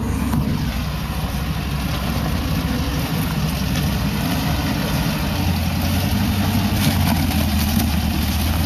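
Pinzgauer off-road truck's engine running at low revs as it crawls down a rocky slope. It gets louder about five seconds in as the truck comes close.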